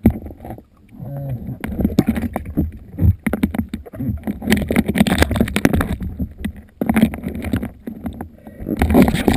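Water sloshing and washing around a speargun-mounted camera in very shallow sea water, with many irregular clicks and knocks and swells of noise that come and go.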